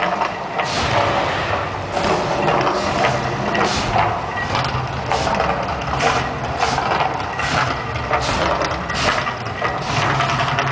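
Propane fire jets of the Mirage volcano show whooshing and hissing in repeated irregular bursts, coming faster in the second half, over a steady low rumble.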